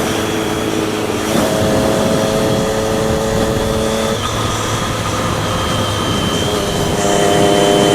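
Triumph Daytona 675R's inline three-cylinder engine running at cruising revs under wind noise. Its pitch steps up about a second and a half in, drops about four seconds in, and rises again near the end as the revs change.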